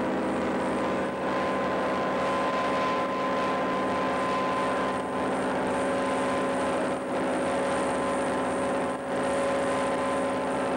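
Live industrial noise music: a loud, dense drone of steady held tones over a thick wash of noise, with brief dips every few seconds, recorded on a VHS camcorder.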